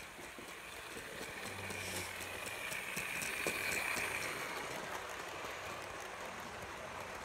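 OO-gauge model train with Hornby GWR coaches running past on sectional track, with no onboard sound fitted. The wheels roll on the rails with a string of clicks, and the noise grows louder around three to four seconds in as it passes close, then eases off.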